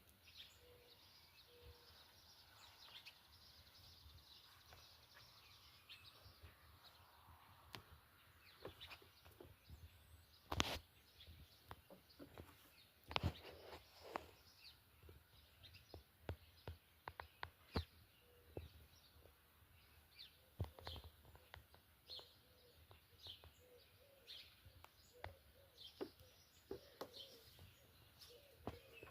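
Garden birds chirping and calling faintly. From about a quarter of the way in there are scattered sharp clicks, with two louder knocks about a third of the way through and again soon after.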